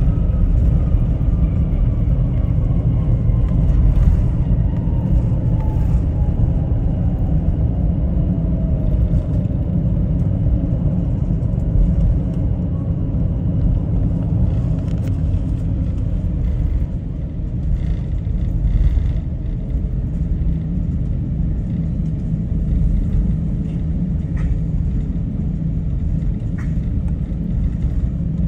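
Jet airliner heard from inside the cabin just after touchdown: an engine whine falls steadily in pitch over about the first ten seconds as the engines spool down. Under it, the low rumble of the aircraft rolling on the ground goes on steadily.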